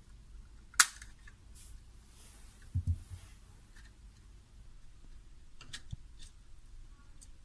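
Handling noises from wiring a wall switch: one sharp click about a second in, a couple of dull knocks near three seconds, then a few lighter clicks.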